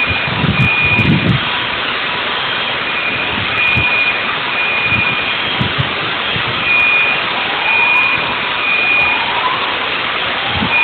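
Aftermath of a large explosion: a loud, steady roar with an alarm beeping over it in short, repeated beeps. A few low thuds come near the start, and faint rising wails come later.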